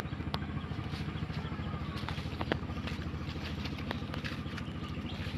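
Engine of a passing river boat running steadily, a low even drone, with a few light clicks over it.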